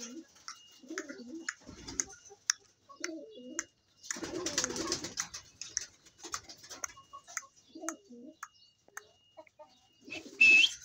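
Chickens clucking softly in short low murmurs, with scattered light clicks, and one short high-pitched call near the end.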